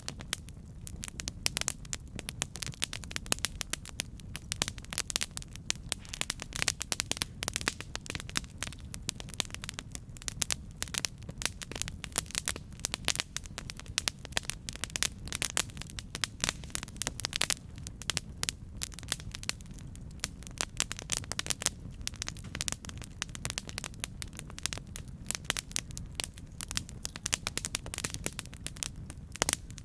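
Campfire crackling: dense, irregular pops and snaps from burning wood over a steady low rumble of the flames.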